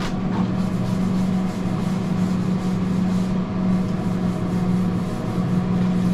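A metal scouring pad scrubbing back and forth across a steel flat top griddle wet with lemon juice, a steady rasping rub. It sits over a steady low hum.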